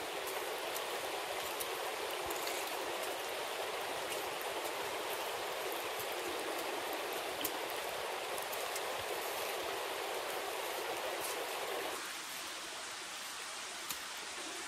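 Campfire of glowing coals crackling, a steady hiss with scattered small pops; the hiss drops a little about twelve seconds in.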